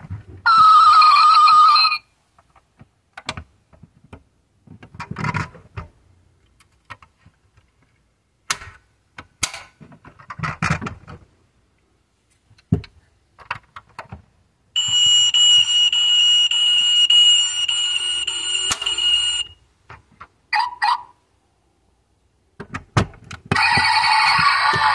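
Built-in sound module of a 1/24 die-cast Audi A7 model playing electronic effects through its tiny speaker, set off by pressing on the model: a short sound just after the start, a steady ringing tone lasting about five seconds past the middle, a brief blip soon after, and another sound starting near the end. Small clicks and taps of the model being handled fall in the gaps.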